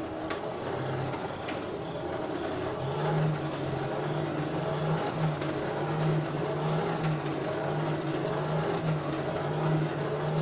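Air blower on a coal forge running, blowing air into the fire: a steady rushing drone with a low hum that cuts in and out for the first few seconds, then holds steady. A couple of faint clicks near the start.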